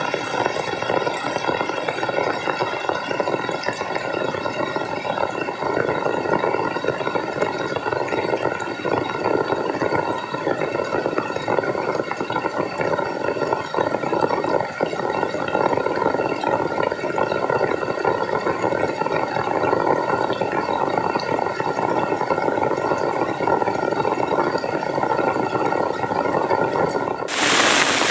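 Steady bubbling, splashing water sound. About a second before the end it switches abruptly to the brighter hiss of heavy rain.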